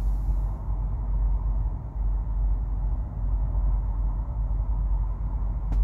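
Truck engine idling, heard as a steady low rumble from inside the parked cab. A couple of sharp clicks come at the very end.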